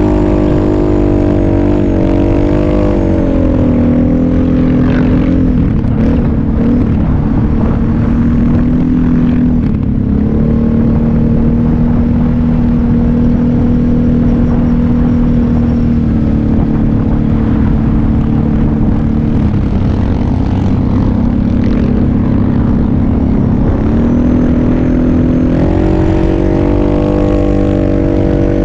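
Kawasaki KFX700 ATV's V-twin engine running under load, heard from on board. Its pitch drops a few seconds in, holds fairly steady through the middle with brief dips, and climbs again near the end.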